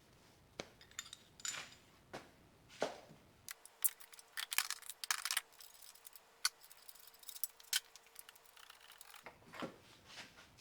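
Light metallic clicks and taps, scattered and irregular, from tools and fittings being handled while the car's air-conditioning low-pressure line fitting is loosened.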